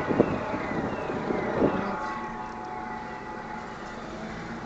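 Car engine and road noise heard from inside the cabin, a steady hum, with a couple of knocks in the first two seconds.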